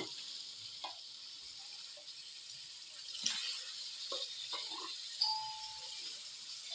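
Water being poured into a pot of hot, oily fried masala, with an even hiss that grows louder about three seconds in and a few light knocks against the pot.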